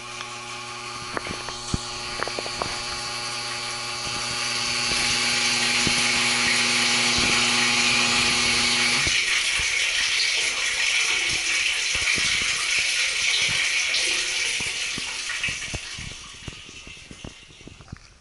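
A steady machine hum with a stack of overtones cuts off abruptly about nine seconds in, under a loud rushing hiss that swells and then fades near the end, with scattered knocks.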